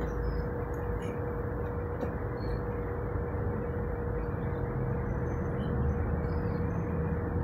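Steady background hum with a constant mid-pitched tone, and a few faint clicks.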